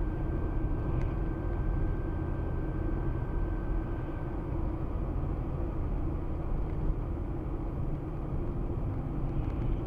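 A car driving along a road: a steady low rumble of engine and tyres with a faint steady hum.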